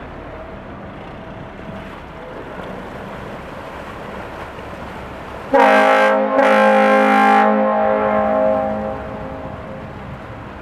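Canal tugboat's horn sounding, loud: a short blast running straight into a longer one, about three seconds in all, over a low steady rumble.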